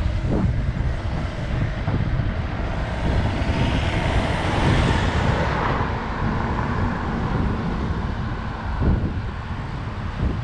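Steady wind rumble on the microphone, with a car passing close by about halfway through, its road noise swelling and then fading.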